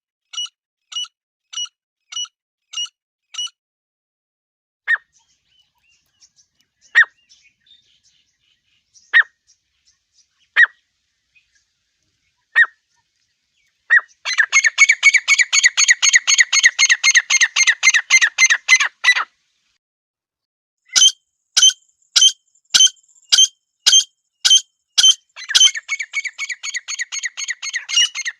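Partridge (teetar) calls used as a hunting lure: a few single sharp calls about two seconds apart, then a fast, unbroken run of calls for about five seconds. After a short pause the calls come again at a steady pace and quicken into a dense chatter near the end.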